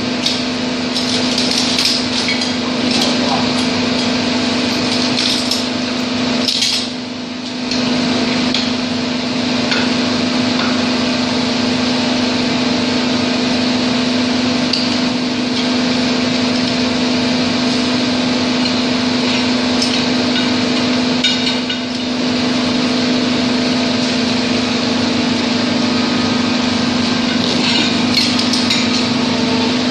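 HFU-3A hydraulic underground core drilling rig running with a steady hum, dipping briefly twice. Over the hum come scattered metallic clinks and knocks of hand tools on the drill rod and chuck.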